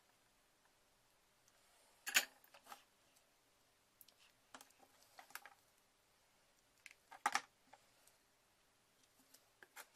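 Small clicks and knocks of a plastic laptop power adapter and small tools being handled and set down on a cutting mat. The two loudest knocks come about two seconds in and about seven seconds in, with lighter taps between.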